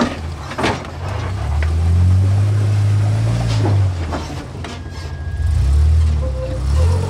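Jeep Wrangler engine pulling at low speed over trail obstacles, swelling with the throttle twice, with a few sharp knocks.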